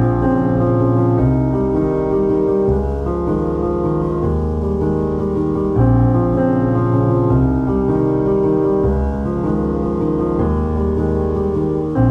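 Background instrumental music led by piano, with sustained notes and chords changing every second or two over a bass line.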